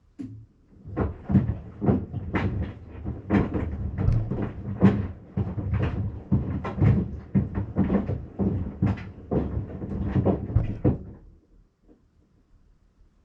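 Maytag washing machine working a load of sandals: irregular knocking as the sandals hit the sides of the washer, mixed with a swishing wash sound, which stops about eleven seconds in.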